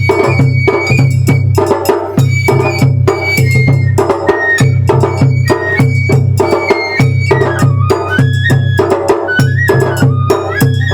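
Japanese festival hayashi music: a bamboo flute plays a high, sliding melody over a steady, rapid pattern of drum and percussion strikes.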